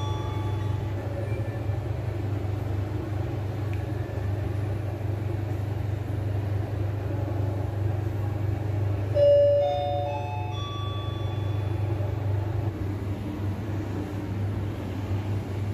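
2004 Hyundai STVF elevator's electronic arrival chime: four notes stepping upward, heard in full once about nine seconds in as the car reaches its floor, with the high last note of a chime also at the very start. Under it runs a steady low hum.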